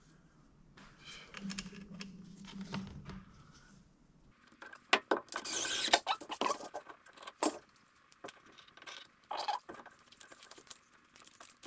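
Scattered clicks, taps and scratchy rustling of hands working metal flex cable and its clips against a wooden post, busiest about halfway through.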